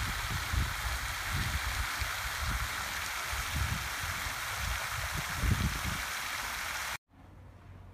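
Fountain jet spraying and its water falling back into the pond: a steady splashing hiss, with irregular low rumbles beneath it. It cuts off suddenly about seven seconds in, leaving a much quieter background.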